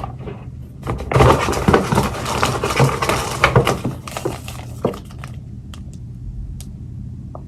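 Rustling of packaging with small clicks and knocks as items are taken out of a goodie bag and handled. It is dense for a few seconds from about a second in, then thins to a few light clicks.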